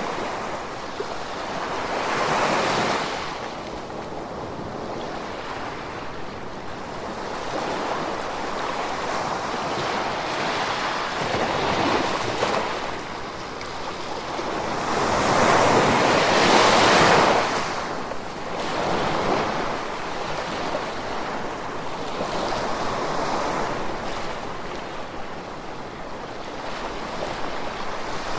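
Ocean waves washing onto the shore in slow, uneven surges, each swell rising and falling away over a few seconds, the largest about halfway through.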